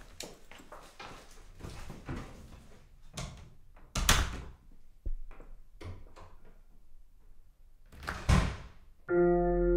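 Footsteps and light shuffling down a hallway, then a door shutting with a sharp knock about four seconds in and the front door closing near the end. Piano music comes in just before the end.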